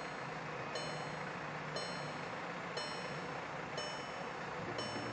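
Electronic warning chime repeating evenly, a short high ding about once a second, over a steady low hum.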